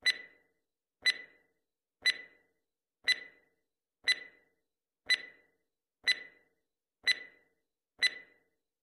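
Countdown timer sound effect: a short, sharp tick with a brief ringing tone, once a second, nine times.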